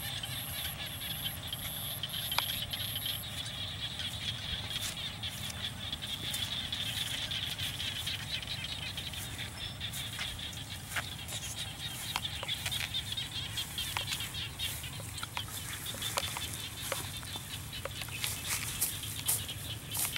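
Outdoor field ambience: a steady high hiss over a low rumble, with a run of small clicks and knocks near the end as a wire cage trap and bricks are handled in the grass.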